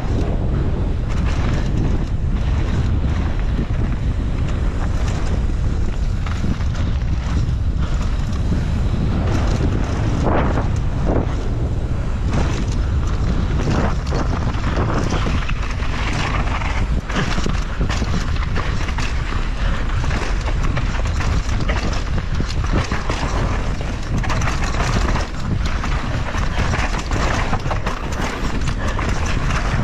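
Wind buffeting the microphone of a camera on a mountain bike riding fast downhill, with tyres running over dirt and gravel and the bike rattling and knocking over bumps.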